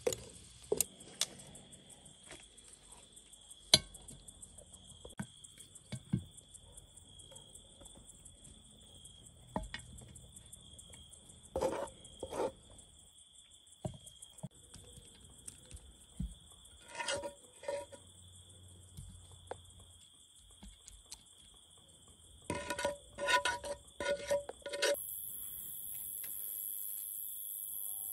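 Kitchen utensils and dishes clinking and tapping now and then, with a few short bursts of ringing clatter, the last and busiest near the end. A faint steady high whine sits underneath.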